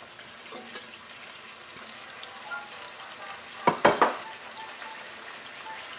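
Chopped onion and chicken pieces frying in oil in a saucepan, a steady sizzle, with a couple of sharp knocks a little before four seconds in.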